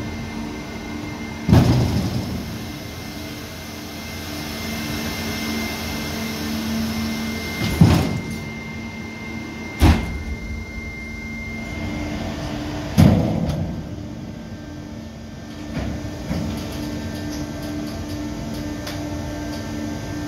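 Landing gear of an Antonov An-124-100 being cycled on jacks. A steady mechanical hum with a thin high whine runs under a series of heavy clunks a few seconds apart, each ringing briefly, as gear legs, doors and locks move. The whine stops a little past halfway.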